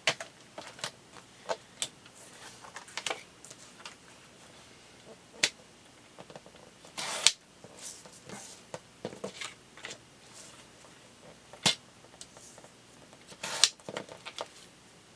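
Paper and scrapbooking supplies being handled on a desk: scattered light clicks and taps, with a short rustle or slide about seven seconds in and another near the end.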